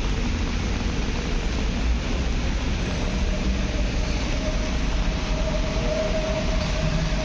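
Metro train running on rails, a steady rumble with a wheel squeal that comes in about four and a half seconds in and grows louder.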